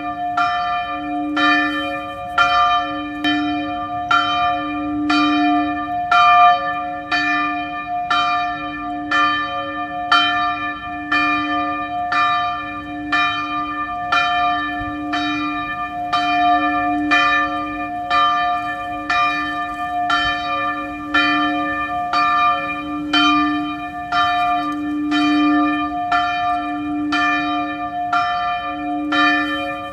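A church bell struck over and over at about one stroke a second, each stroke ringing on into the next so the bell never falls quiet.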